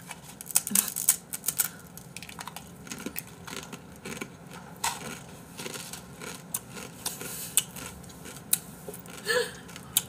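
Close-miked eating from a bowl: irregular wet chewing clicks and crackles, with light knocks of the bowl and utensils.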